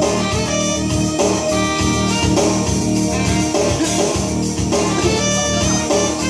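A live band playing a song, with a keyboard among the instruments.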